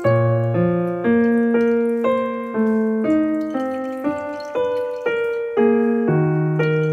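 Classical solo piano music, a new note or chord struck about twice a second, each ringing and fading before the next.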